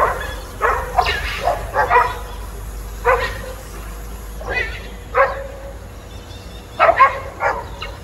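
Dogs barking and yipping in short clusters of sharp calls while they fight an otter in shallow water.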